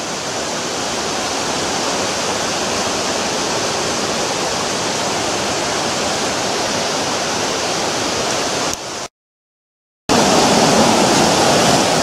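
Steady rushing of a tall, narrow waterfall pouring down a rock face. About nine seconds in, the sound cuts out for a second, then comes back louder and fuller as the rush of the river in the gorge.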